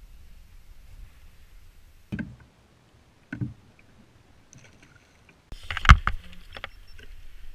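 Low wind and water noise, then a few separate knocks and handling thumps on a plastic fishing kayak, the loudest about six seconds in.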